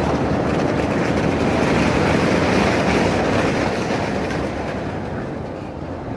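Roller coaster train running at speed along a steel track with a dense, even rumble. It swells slightly in the middle and eases off near the end.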